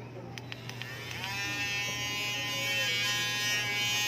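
A few clicks, then the small electric motor of a handheld power tool used for trimming and sanding carbon fibre starts about a second in. It quickly winds up to a steady high-pitched whine and runs free.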